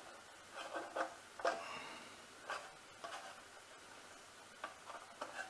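Irregular light clicks and knocks of small plastic parts being handled, as the LCD module of a PCM60X charge controller is worked at to pull it free.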